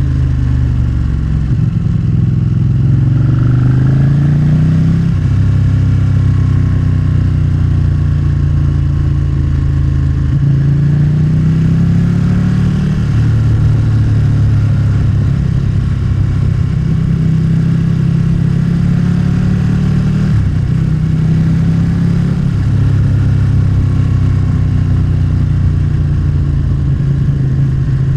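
Motorcycle engine running under way, its pitch climbing as it revs through a gear and dropping back at each shift, several times over, with a steady low rumble underneath.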